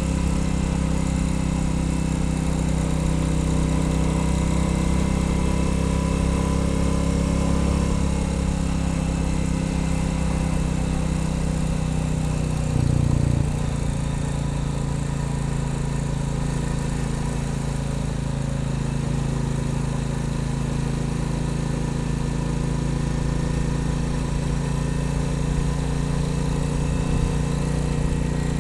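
Royal Enfield Bullet 350's single-cylinder engine and exhaust running steadily on the move, with wind and road noise. About 13 seconds in the engine briefly gets louder and its note then shifts.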